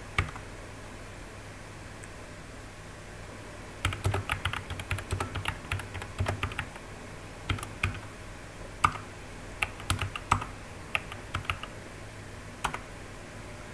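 Computer keyboard typing: irregular runs of keystrokes starting about four seconds in and stopping shortly before the end, over a steady low background hum.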